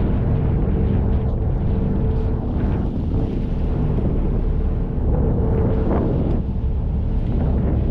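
Wind buffeting the microphone over the steady low drone of the boat's engine, with sea and wind noise around it.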